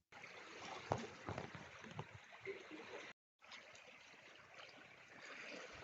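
Faint outdoor field ambience: a steady noisy hiss of wind and water with a few light knocks. It cuts out completely for a moment about three seconds in.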